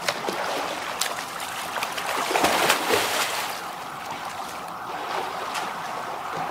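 Water splashing from a swimmer's front-crawl strokes in a pool, with short slaps as the arms hit the surface; loudest about two and a half seconds in.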